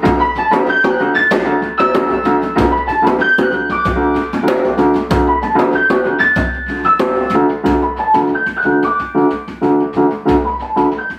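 Yamaha grand piano playing a flowing melody over repeated chords, with a djembe played alongside, its deep bass strokes coming roughly every second and a bit.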